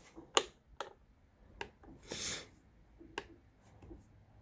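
A few sharp clicks and one short scraping rasp a couple of seconds in, from hands working on a chainsaw's bar and chain.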